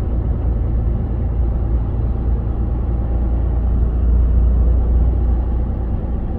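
Semi-truck engine and road noise heard from inside the cab while driving: a steady low rumble with no distinct knocks.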